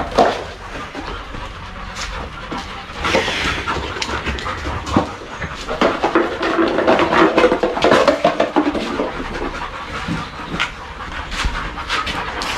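Dogs panting, with scattered clicks throughout.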